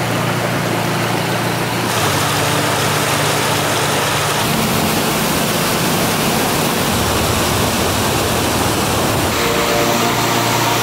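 Small waterfall and creek rushing over rocks close by: a loud, steady hiss of falling water.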